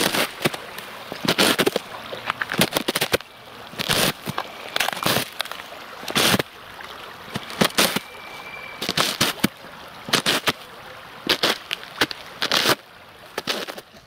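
Footsteps of hiking boots on thin river-edge ice. Each step gives a sharp crunch and crack as the ice breaks underfoot, coming unevenly about once or twice a second.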